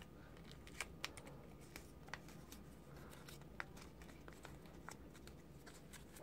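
Faint handling of origami paper as it is folded and pressed flat: a handful of soft ticks and rustles over a low steady hum.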